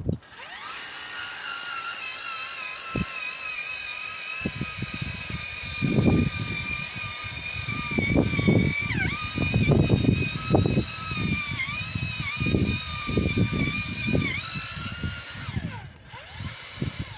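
Power drill running steadily as it bores down into the ground, its whine dipping in pitch a few times as it bogs under load, with irregular low thuds and rumbling from about six seconds in; it stops near the end.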